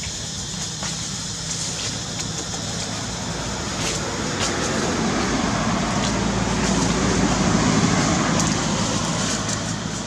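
A motor vehicle passing by: a steady engine and road noise that builds for a few seconds to a peak and then fades, with a few faint clicks.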